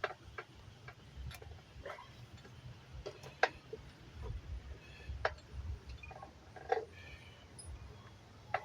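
Scattered light clicks and taps of metal bicycle crank parts and hand tools being handled during a 3-piece BMX crank install, at irregular intervals over a faint low hum.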